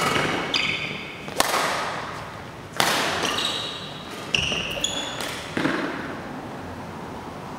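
Badminton rackets striking the shuttlecock in a rally, about five sharp hits roughly a second and a half apart, each ringing on in a large echoing hall. Short high squeaks of court shoes on the floor fall between the hits.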